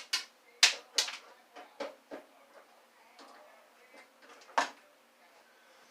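Irregular sharp clicks and clanks of hand tools on a microwave oven's sheet-metal casing during disassembly: several in the first second or so, then scattered lighter taps, and a louder clank about four and a half seconds in.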